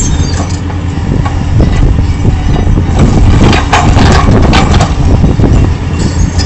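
Caterpillar hydraulic excavator's diesel engine running steadily under load as its bucket breaks into a masonry wall, with crunching and cracking of broken rubble loudest about three to five seconds in.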